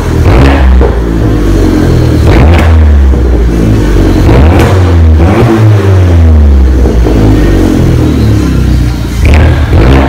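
2012 Fiat 500 Abarth's turbocharged 1.4-litre four-cylinder, warmed up, revved repeatedly through its stock exhaust, with the pitch rising and falling between blips, inside an enclosed wash bay.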